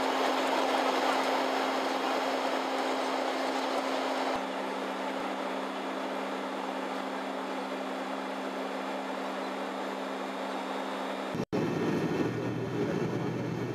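Airliner cabin noise in flight: a steady rushing drone with a low engine hum. It breaks off for an instant near the end, then returns deeper and duller.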